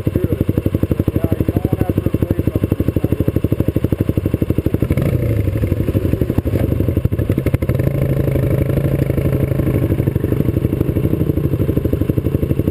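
Yamaha Riva scooter engine idling with an even, rapid putter. About five seconds in, a second, smoother engine note rises and holds steady for about five seconds, then drops back.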